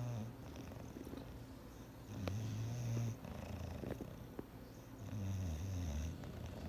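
English bulldog snoring in its sleep: low-pitched snores about every three seconds, with faint clicks between them.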